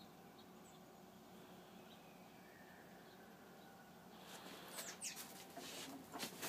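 Near silence: faint room tone, then from about four seconds in a few soft clicks and rustles, ending in one sharp click.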